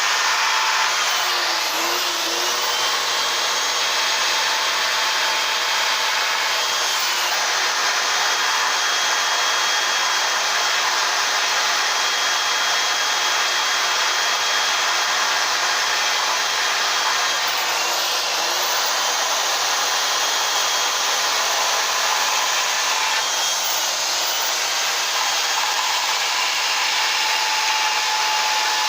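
Carving chainsaw running at high revs while cutting into wood. Its steady whine dips briefly and recovers a few times as the chain takes load.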